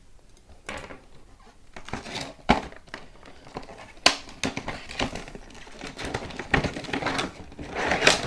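Packaging being handled and opened by hand to unbox a microphone pop filter: irregular crinkling and rustling with scattered sharp clicks and knocks.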